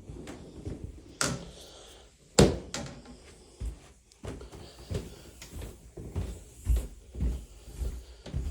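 Irregular knocks and thumps: two sharp ones, the louder about two and a half seconds in, then a run of softer thumps every half second or so.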